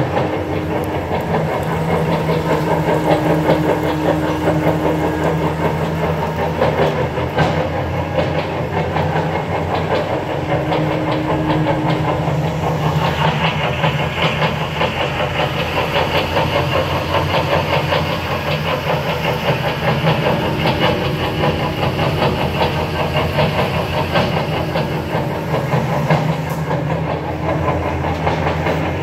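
Meissner 130 industrial meat grinder running: a steady electric-motor hum with a dense, even rattle from the drive. A brighter hiss joins about 13 seconds in.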